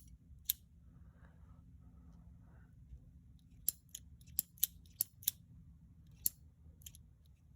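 Sharp small metal clicks, about eight in all, most of them in a quick run in the middle, from the lockwork parts of an H&R Model 676 revolver being handled and pressed into the frame.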